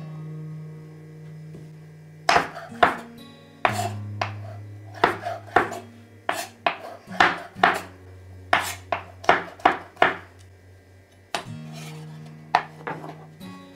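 Chef's knife slicing black olives on a bamboo cutting board: a long run of sharp, irregular knocks of the blade hitting the wood, starting about two seconds in. Background acoustic guitar music plays underneath.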